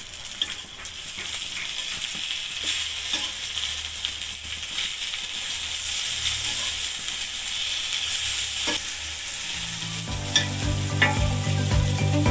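Eggplant slices sizzling as they shallow-fry in oil in a flat pan, with scattered clicks and scrapes of a metal spatula turning them. Music with a steady beat comes in near the end.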